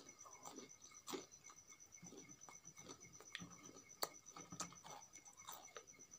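Fingers mixing and squeezing sticky rice with chutney on a steel plate: soft squishes and scattered light clicks, with two sharper clicks about one and four seconds in.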